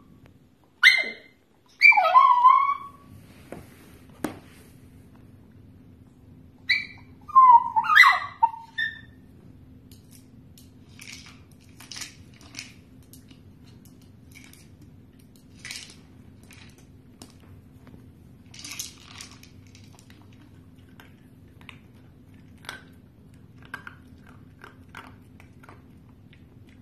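A dog gives a few short, high-pitched barks in two bunches within the first nine seconds. Then come scattered light clicks and rattles as a hard plastic treat-dispensing ball is nosed and pawed on a rug.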